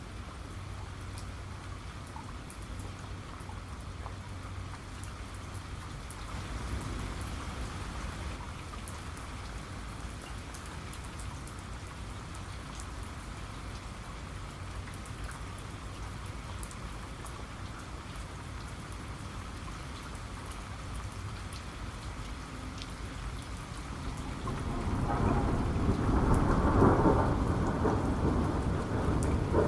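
Steady rain falling, with fine drop ticks. Near the end a long roll of thunder swells up and becomes the loudest sound.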